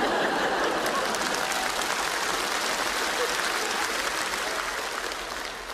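Theatre audience applauding, a dense patter of many hands clapping that slowly dies away near the end.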